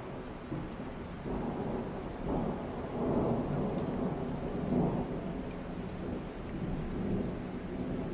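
Distant thunder rumbling from a night thunderstorm. It swells about a second in, is strongest around the middle and eases off toward the end.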